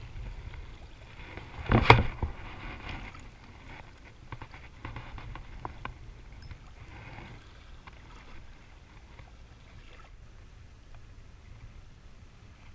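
Steady low wind rumble on the microphone with small clicks from handling the fishing rod and spinning reel, and one loud, brief rustle about two seconds in.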